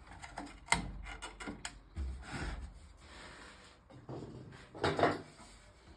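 Handling noises on a workbench: several sharp clicks, then scraping or rubbing sounds. The loudest scrape comes about five seconds in.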